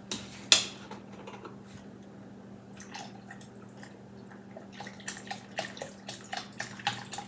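Beef broth poured from a carton into a pot of soup, the liquid glugging out of the spout in quick uneven pulses, about three or four a second, from about three seconds in. A sharp click about half a second in as the carton's cap is twisted open.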